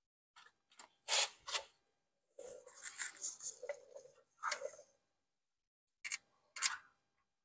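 Short scrapes and clicks of metal on metal, in several clusters with a longer rough rubbing stretch in the middle, as a C6 Corvette brake caliper is worked over its abutment bracket and rotor.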